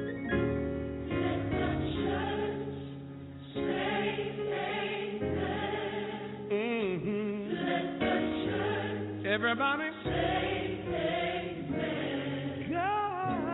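Gospel choir singing a slow song over steady instrumental backing, with a lead voice's wavering runs breaking through twice in the middle.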